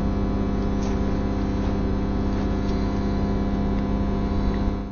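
Steady electrical buzz of corona discharge on high-voltage substation conductors: a mains hum with a crackling hiss over it. It fades out near the end.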